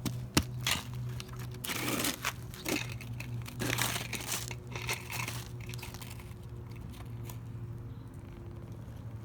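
Toy excavator and bulldozer scraping and scooping dirt: gritty crunching scrapes and small plastic clicks, busiest in the first half, with a steady low hum underneath.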